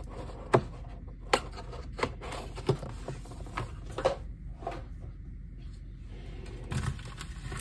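K-pop album packaging (a cardboard album box and plastic-sleeved albums) being handled and set down on a wooden table: a series of sharp taps and knocks, the loudest about half a second in, with soft handling noise between.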